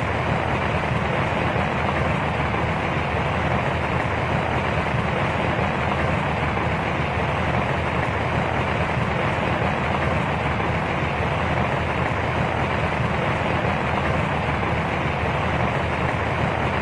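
Steady rainfall: an even, unbroken hiss with a strong low rumble and no single drips standing out.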